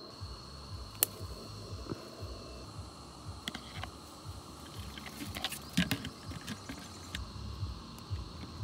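Outdoor field ambience: a steady high-pitched insect drone under a low rumble, with scattered sharp clicks and taps of handling, the sharpest about a second in and a cluster of them around five to six seconds in.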